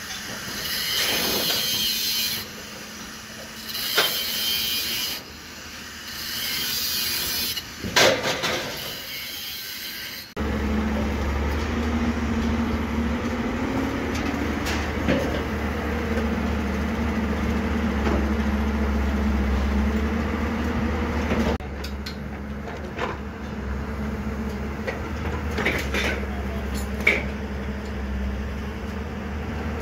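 Construction-site noise. For the first ten seconds there are bursts of hiss with a couple of sharp knocks. After that a heavy diesel engine, as on a Cat hydraulic excavator, runs steadily with a low hum, its pitch rising briefly, with scattered light metal clicks later on.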